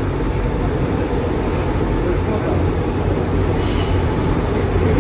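Cabin sound of an MTR M-Train metro car running on the line: a steady low rumble of wheels on rail and running gear, with a faint, brief higher-pitched sound about three and a half seconds in.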